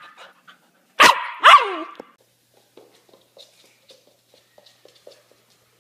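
A dog barks twice in quick succession about a second in. Faint small ticks and rustles follow.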